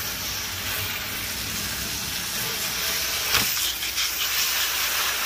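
Garden hose spray nozzle hissing steadily as water sprays onto fish belly meat and a stainless steel table, rinsing off the slime. A brief knock about three and a half seconds in.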